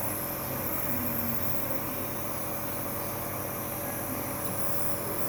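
Nebulizer compressor running with a steady hum and hiss, misting a baby's airways to loosen phlegm.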